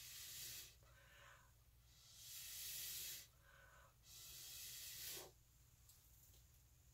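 Three long hissing puffs of breath blown through a drinking straw to push wet acrylic paint across a canvas, with shorter breaths drawn in between. The last puff ends about five seconds in.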